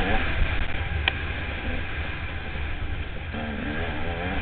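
Enduro dirt bike engine running along a rough dirt track, its pitch rising and falling as the throttle opens and closes, under a heavy rumble of wind on the microphone. A single sharp click about a second in.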